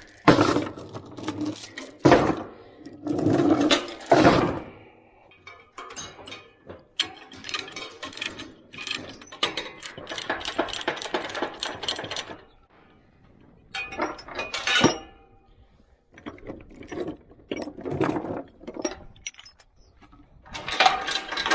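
Ratchet load binders being worked loose and steel tie-down chains clinking and clanking as the load is released from the trailer. Louder clanks come first, then about six seconds of quick ratchet clicking, then scattered chain clinks.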